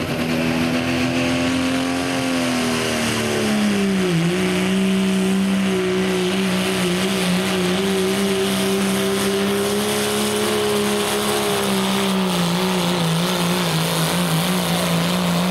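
Dodge Ram pickup's diesel engine running flat out under full load while dragging a weight-transfer sled in a truck pull. Its pitch sags about three seconds in as the sled's drag builds, then holds nearly steady to the end.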